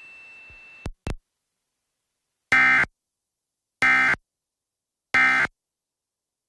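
Emergency Alert System end-of-message (EOM) data signal: three identical short bursts of warbling digital data tones, each about a third of a second long and about 1.3 seconds apart, marking the end of the alert. Before them a faint hiss ends in two quick clicks about a second in.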